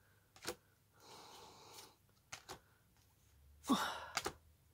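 Quiet handling of paper game cards: a few soft clicks and slides as one card is swapped for the next, with a breath out and, near the end, a short breathy vocal sound from the person holding them.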